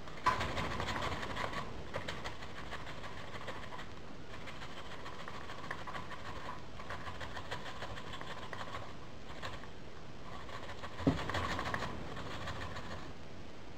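Red onion being grated on the fine side of a metal box grater into a bowl: a steady rasping scrape of rapid strokes, with one knock near the end.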